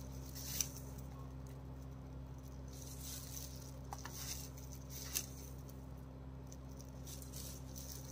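Teaspoons of salt tipped into a metal pot of rice and water: soft pattering with a few light clicks of the spoon, the clearest about half a second in, over a steady low hum.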